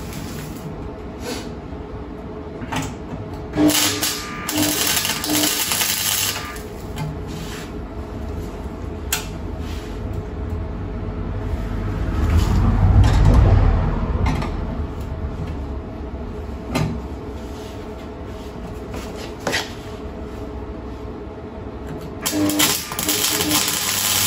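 Parkside welder arc-welding steel on a car's rocker panel, crackling and spitting in runs of short bursts for the first few seconds and again near the end. In the pause between there are only scattered clicks and a low rumble about halfway.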